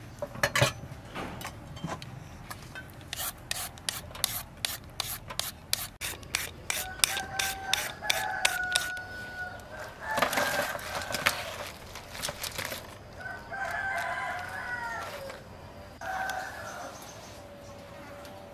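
Crisp vegetables being handled and laid on a tray, a quick run of clicks and rustles over the first few seconds. A rooster crows about four times in the second half, each crow falling away at its end.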